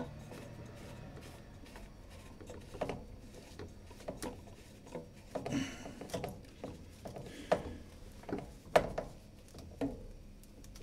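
Plastic sink waste pipe fitting being hand-tightened: irregular clicks, knocks and rubbing of the plastic parts, with a short scrape about five and a half seconds in and a sharper knock near the end.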